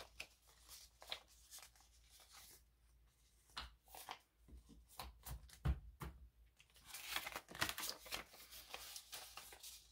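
Paper prop-money bills rustling and flicking as they are handled and sorted by hand, in scattered soft bursts, with a single louder knock a little past halfway.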